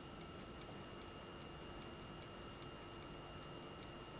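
Cylinder-escapement pocket watch ticking with its case open, a faint, fast, even tick of about five beats a second as the movement runs.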